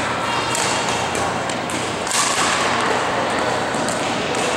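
Badminton rackets hitting a shuttlecock in a doubles rally: a quick series of sharp hits about half a second apart, with shoes moving on the court floor, in a reverberant sports hall.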